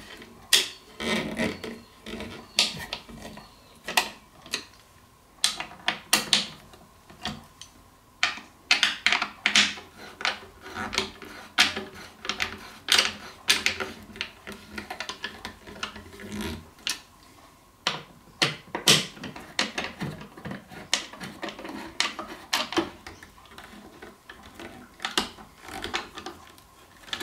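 T-handle Allen key tightening machine screws into the metal threaded inserts of a wooden chair frame: a run of irregular clicks and small metal-on-metal scrapes as the key is turned and re-seated in the screw heads, stroke after stroke.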